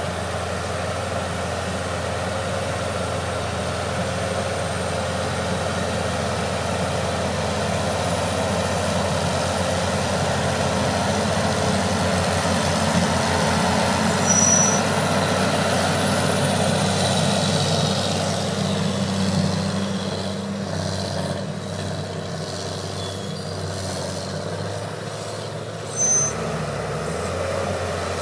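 John Deere 700H bulldozer's diesel engine running steadily under load, a little louder in the middle and easing off later. Two short, sharp high-pitched sounds cut through, about halfway and near the end.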